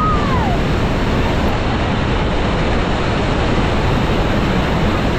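Niagara Falls waterfall pouring down close by: a loud, steady rush of falling water and spray, with wind buffeting the microphone.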